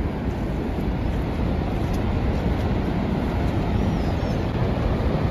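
Steady, deep rush of water from Niagara Falls pouring over the brink, heaviest in the low end and unchanging.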